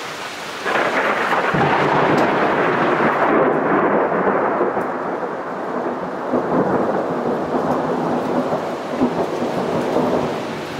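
Thunder: a loud rumble breaks in suddenly less than a second in and rolls on, slowly easing, following a nearby lightning strike. Steady rain runs under it.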